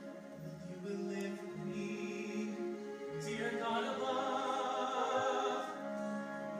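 Live musical-theatre singing: sustained, slowly moving sung notes over orchestral accompaniment in a slow ballad duet, swelling louder about halfway through.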